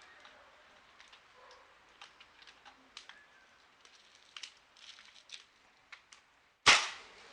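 Scattered faint clicks, then about six and a half seconds in a single sharp shot from a Hatsan 150HT spring-piston air rifle fitted with a homemade suppressor, fading within half a second. What is heard is mostly the spring firing, the muzzle report muffled by the suppressor.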